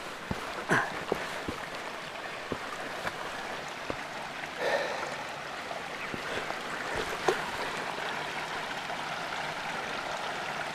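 A mountain stream running steadily, with scattered footsteps and clicks on stony ground, most of them in the first few seconds.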